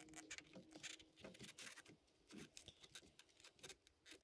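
Near silence with faint, scattered small clicks and ticks as a small hex driver turns a screw holding a suspension pin into the plastic rear hub of an RC car.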